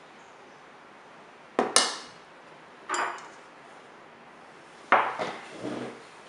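A metal spoon clinking against a stainless steel mixing bowl, with a short ring, and dishes being set down on a wooden table: a sharp double clink about one and a half seconds in, another clink about three seconds in, and a clatter near the end.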